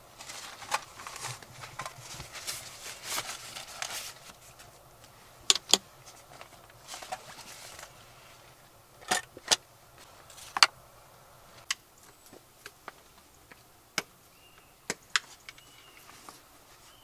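Camping gear being packed and handled: cloth and bags rustle for the first few seconds, then come irregular sharp clicks and knocks as items are picked up and set down.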